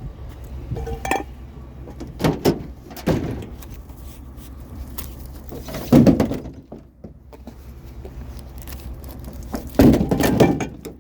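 Heavy hammock stand being handled and loaded: a series of knocks and thuds, the loudest about six seconds in and another cluster near the end, over a steady low rumble.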